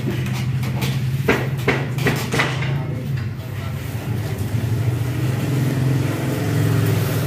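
A steady low hum, with a few sharp knocks in quick succession between about one and two and a half seconds in.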